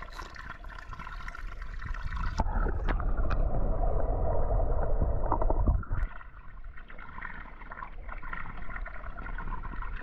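Swimming-pool water gurgling and lapping as small die-cast toy cars are pushed off the stone edge into the pool. A few faint clicks come through, and the water noise is louder in the middle.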